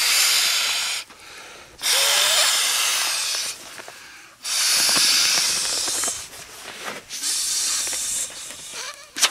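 Trekology Aluft inflatable camping pillow being blown up by mouth: four long, hissing breaths pushed into its valve, with short pauses for breath between them. A sharp click near the end.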